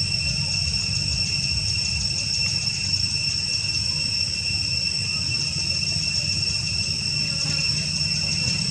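Steady high-pitched drone of insects calling at one unchanging pitch, with a low rumble underneath.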